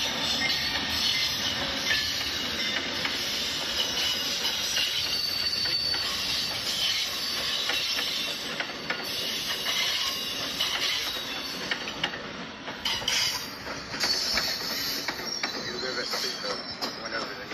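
Motorised LEGO train rolling past on plastic track, a steady light rattle with many small clicks from its wheels running over the track joints as the cars go by.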